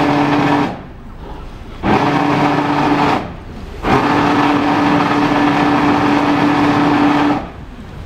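Catamaran's propulsion under YANMAR joystick control, running in three bursts of a steady whine over a wide hiss, each starting and stopping sharply, the last about three and a half seconds long, as the boat is nudged into a tight berth.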